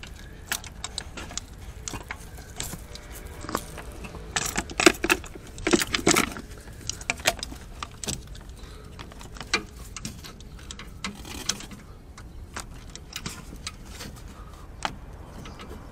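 Socket ratchet and long extension clicking and clinking against metal as a new spark plug is given its final tightening in a Subaru EJ20 boxer engine. Scattered sharp metallic clicks, busiest about four to six seconds in.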